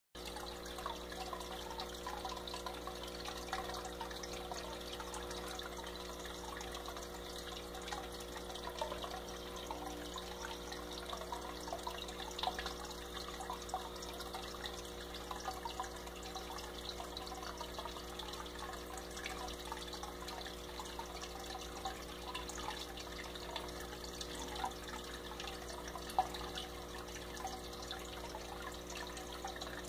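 Water trickling and splashing steadily in an aquarium, with faint scattered drips, over a constant low hum.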